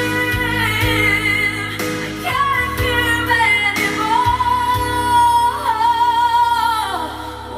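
A song with a woman singing long held notes over instrumental backing, played back through hi-fi speakers; her last note slides down near the end.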